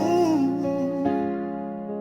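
Slow, sad R&B music: held electric piano chords with a wavering melody line over them that ends within the first second, then a new chord about a second in.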